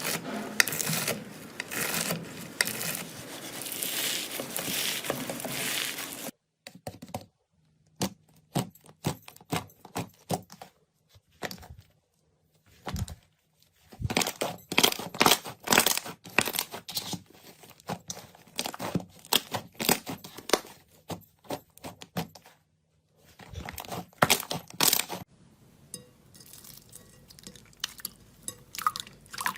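Slime being squeezed, stretched and pressed by hand, giving dense sticky crackles and popping clicks. The texture changes abruptly a few times, with brief near-silent gaps between stretches of crackling.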